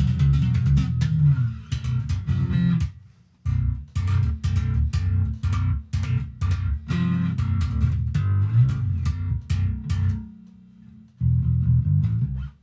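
Six-string Squier electric bass played fingerstyle: fast runs of low plucked notes with sharp, clicky attacks. The playing breaks off briefly about three seconds in, and pauses for about a second near ten seconds before starting again.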